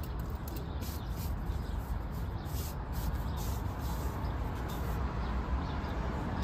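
A hand brushing and smoothing a fabric car-seat cover: a few short rustling swipes, mostly in the first half, over a steady low background rumble.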